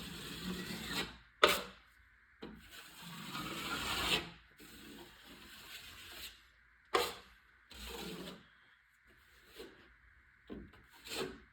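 A 6-inch drywall knife scraping and smoothing wet joint compound across a wall in a series of strokes for a skim coat, with a few short sharp clicks in between.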